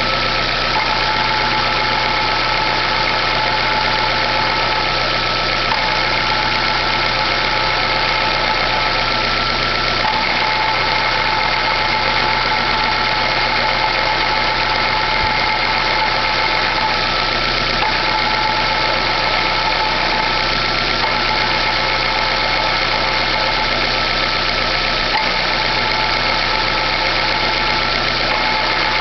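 Chevrolet Classic engine idling, with a steady whine from the clutch that shifts in strength a few times. The noise goes away when the clutch pedal is pressed and comes back when it is released, and it persists after the clutch release bearing was replaced.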